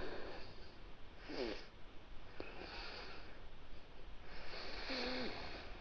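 Faint, short breathy hisses a few times, about a second apart, from a person in a held-breath yoga practice (shanmukhi mudra with the nostrils closed), with a couple of faint brief pitched sounds in the background.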